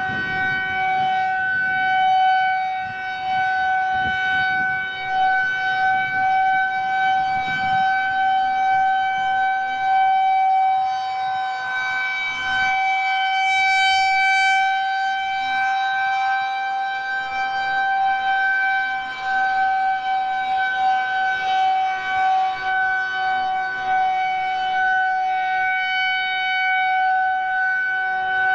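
Federal Signal 2001-130 rotating electromechanical outdoor warning siren sounding a scheduled test. It holds one steady tone at full speed, and its loudness swells and fades slightly as the head rotates.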